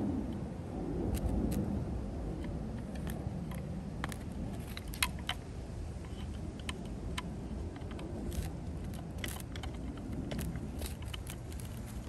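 Small metal parts and tools being handled: irregular light clicks and taps, one sharper click about five seconds in, over a low steady rumble.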